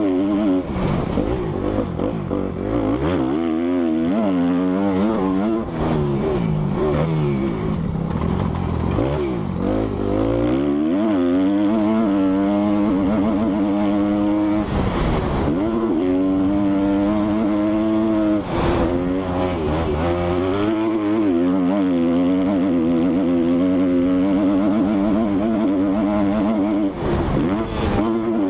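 Motocross dirt bike engines revving hard, their pitch climbing and dropping again and again as they accelerate, shift gears and back off.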